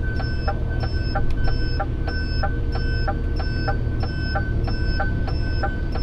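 Lorry's turn indicator ticking steadily, about one and a half clicks a second, over the low rumble of the engine and road inside the cab.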